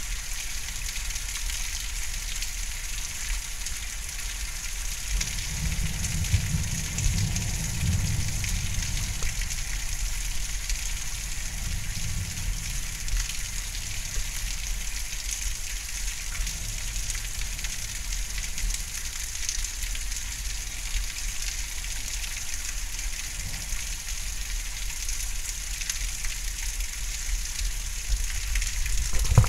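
Heavy thunderstorm rain falling steadily, a dense even hiss. A low rumble swells from about six seconds in and fades out by about thirteen seconds.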